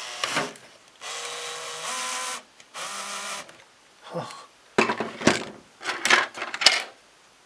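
Bosch cordless drill-driver whirring in two short bursts, a steady motor whine, as it works on a screw clogged with glue. This is followed by a series of sharp knocks and rattles from plastic parts being handled.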